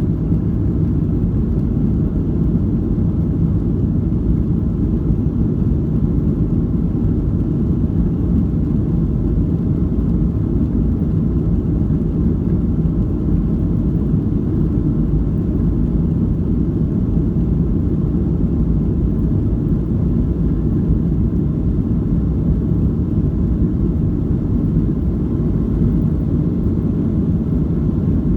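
Boeing 737-700 cabin noise at takeoff thrust: a steady, loud, low rumble from the CFM56-7B engines and the airflow, heard from inside the cabin.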